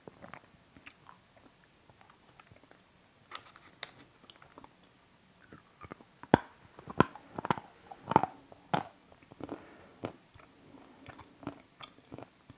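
A person chewing crunchy sweets close to the microphone: soft chewing at first, then a run of loud, sharp crunches in the middle that eases off toward the end.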